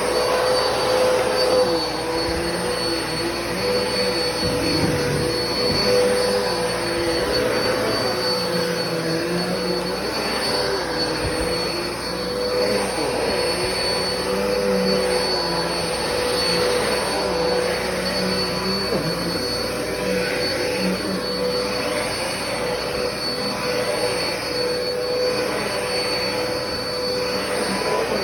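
Black and Decker vacuum cleaner running steadily through ongoing vacuuming: a continuous motor whine and air rush, its pitch wavering slightly.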